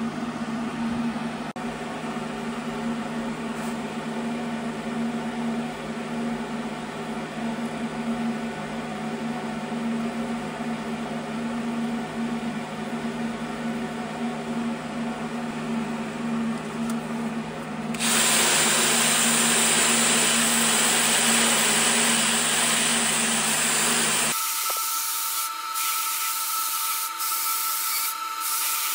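Die grinder porting the ports of a Lincoln V12 flathead engine block. A long steady motor hum turns, well past the middle, into a loud grinding hiss for about six seconds, then changes abruptly to a thinner, higher whine with scratching clicks.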